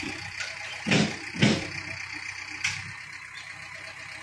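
Diesel engine of a JCB backhoe loader running steadily in the background. About a second in come two loud thumps half a second apart, then a lighter one a little later.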